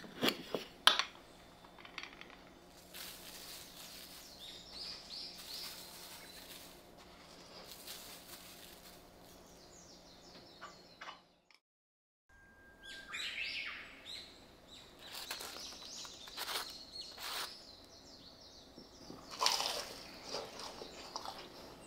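Two sharp clinks from a glass salt shaker being handled, then faint patter of salt being shaken. After a second's silence come scattered high bird chirps and brief whistles.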